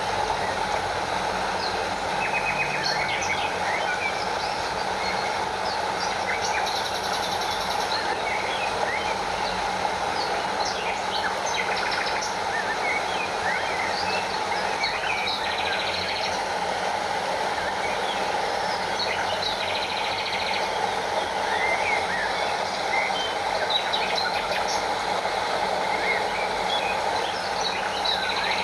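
Steady rushing of a stream and a small waterfall, with many short bird chirps scattered throughout.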